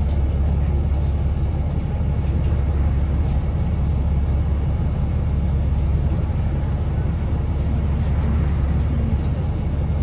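London double-decker bus engine running with a steady low drone, a faint tick about once a second over it: the unknown ticking noise this bus makes at idle.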